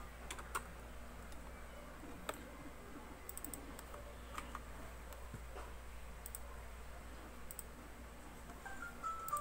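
Keys of a Penble PB-5000 membrane keyboard being pressed: scattered soft key clicks, single or a few at a time, not steady typing. Near the end a short melody of stepped tones begins.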